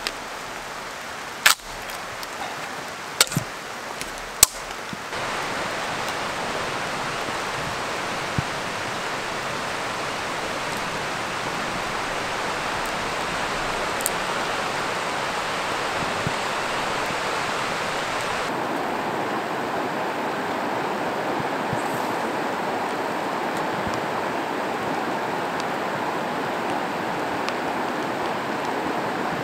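Three sharp knocks in the first few seconds, then a steady rushing noise. From about two-thirds of the way in, it is a fast, high river running over rapids.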